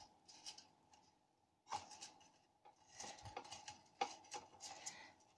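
Faint rubbing and a few light clicks as a thin control wire is threaded and pushed through its guide tube in a model glider's fuselage.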